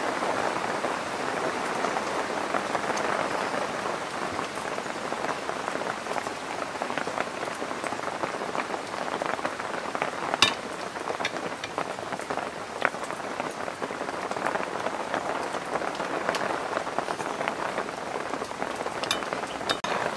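A steady hiss of pattering noise like rain. A metal spoon clinks sharply against the plate about ten seconds in, with a fainter click a couple of seconds later.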